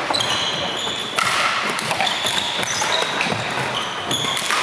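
Court shoes squeaking on a wooden sports-hall floor: a string of short, high squeaks, with a few sharp taps, over the steady hubbub of a busy badminton hall.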